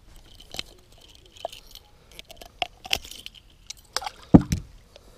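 Light metallic clicks and rattles of pliers and a glide bait's hooks as the lure is worked out of a northern pike's mouth, then a loud splash about four and a half seconds in as the pike is released over the boat's side and kicks off.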